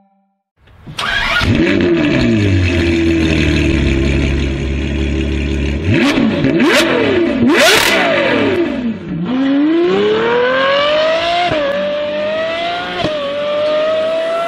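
Ferrari 812 Superfast's 6.5-litre naturally aspirated V12 flaring up and settling to a deep idle, then revved sharply several times. After that it accelerates hard, its note rising steadily with two upshifts.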